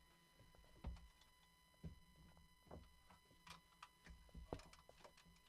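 Near silence in a small, deadened room, broken by a handful of faint knocks and clicks, about one a second, from a person moving about and handling gear.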